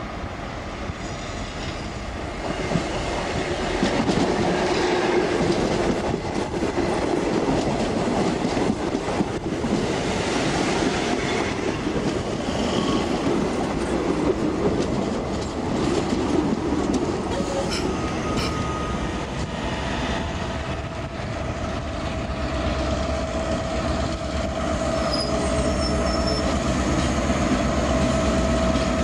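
A suburban electric multiple-unit train passes close, its wheels clattering over the rail joints and squealing on the track. In the last several seconds a diesel locomotive hauling carriages comes by, adding a heavier low engine rumble and a steady high tone.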